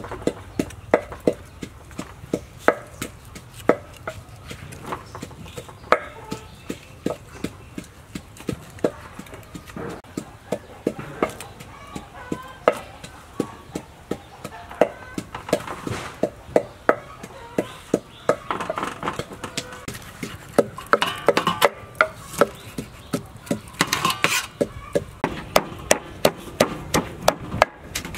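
Wooden pestle pounding in a wooden mortar: repeated dull knocks, about one a second at first, then quicker and closer together in the last third.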